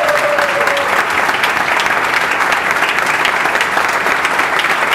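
Audience applauding: many hands clapping steadily and densely.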